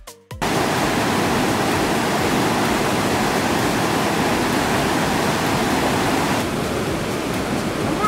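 Electronic music with a beat cuts off within the first half-second, giving way to the steady rushing of a waterfall and its cascading stream. The sound is loud, and it drops a little about six and a half seconds in.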